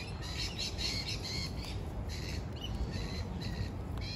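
Birds chirping in quick, repeated short calls over a steady low rumble.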